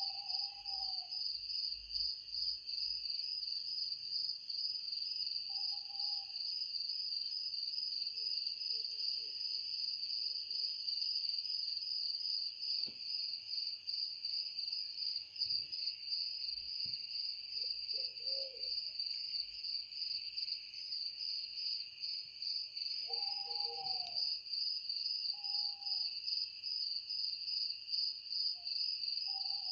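Crickets trilling steadily in a fast, even pulse. Every several seconds there is a short, slightly falling call from a bird, five times in all.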